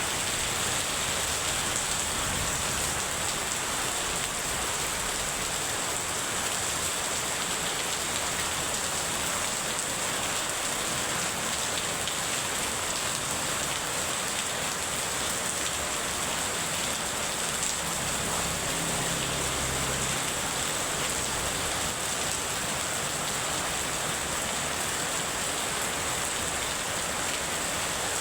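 Heavy rain falling steadily, a dense, even hiss of rain hitting surfaces with no let-up.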